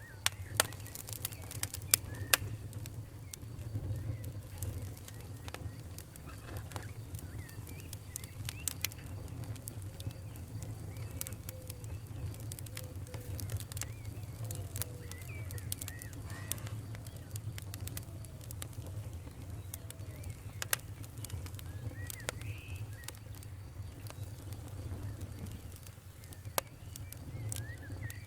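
Wood fire in a fireplace crackling, with irregular sharp pops over a steady low rumble; a few of the loudest pops come in the first couple of seconds. Short faint squeaks are heard now and then.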